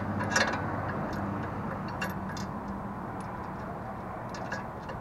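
Small metal parts clinking and ticking as a bolt and metal spacer are handled and fitted into a car's front suspension knuckle, with a few sharp clicks over a steady low hum.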